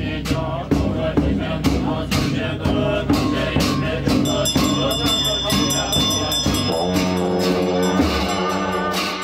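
Music with a steady beat of struck percussion, about two strikes a second, with jingling and held tones; a deep sustained tone comes in about seven seconds in.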